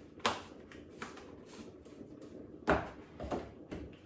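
A few sharp knocks and clatters of kitchen utensils and containers being handled, one near the start and three more in the second half, the one at about three seconds the loudest.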